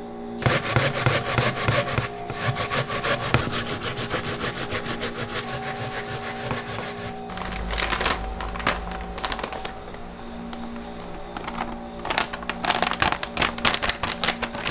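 Kitchen prep by hand: a knife rapidly tapping and scraping over a wooden cutting board for several seconds, then, after a pause, a plastic packet of frying mix crinkling and rustling as powder is poured into a stainless steel bowl near the end.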